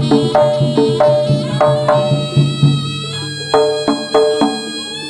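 Jaranan gamelan music played live: a fast, even run of struck metallophone notes over kendang drum strokes, with an oboe-like slompret reed pipe holding a long note through the second half.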